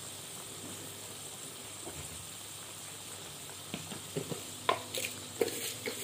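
Blended chili sambal paste sizzling in hot oil in a wok. From a little past halfway, a metal ladle stirs it, giving several sharp clicks and scrapes against the pan.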